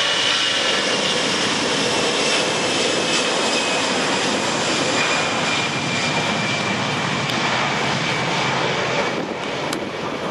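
Airbus A320-214's twin CFM56-5B turbofan engines at takeoff thrust during the takeoff roll and rotation, a loud steady jet roar with a whine that slowly falls in pitch as the airliner passes, easing slightly near the end.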